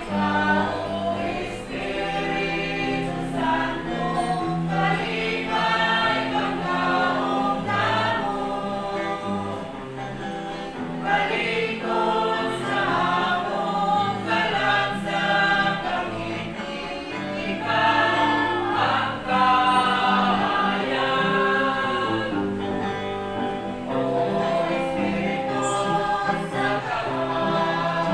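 Group of voices singing a religious song in chorus over instrumental accompaniment with a steady bass line.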